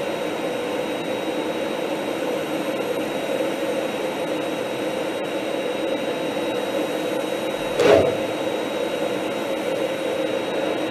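Steady in-flight cockpit noise of an F-16M fighter: the rush of the jet engine and airflow, with a faint steady hum and a thin high tone. About eight seconds in a brief louder rush breaks through.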